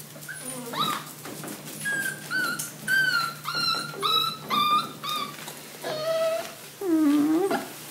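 Dachshund puppies whining: a run of short, high-pitched cries about twice a second, then a couple of longer, lower, wavering whines near the end. The puppies are crying at being kept apart by a wire baby gate.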